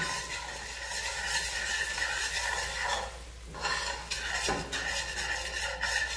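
A spoon stirring and scraping flour into melted butter against the bottom of a stainless steel pot, working up a roux for a white sauce. The stirring pauses briefly about halfway.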